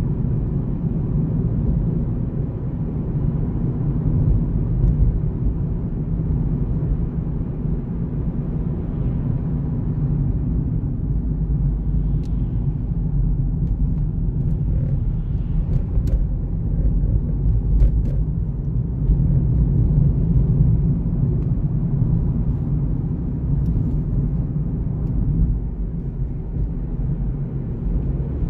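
Steady low rumble of a car driving along a paved road, heard from inside the cabin: engine and tyre noise at a constant cruising pace. A few faint clicks in the middle.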